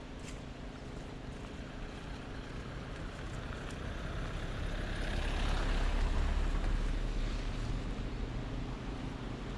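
A motor vehicle passing by, its noise swelling to a peak about six seconds in and then fading away.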